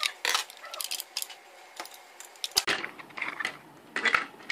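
Plastic case of a Brymen BM257 multimeter being pried apart and handled with a screwdriver: a run of clicks, scrapes and knocks of plastic and metal, loudest a little before the end.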